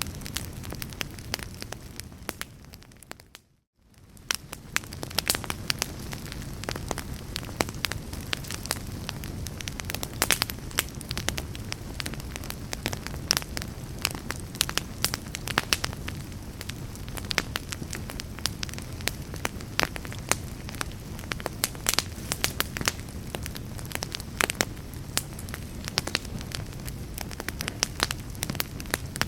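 Wood fire in a fireplace crackling and popping over a low steady rumble. About three and a half seconds in, the sound fades out to near silence for a moment and then fades back in.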